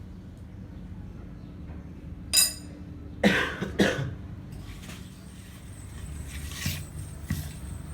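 A metal part clinks once with a brief ring, then two short coughs follow, over a steady low hum.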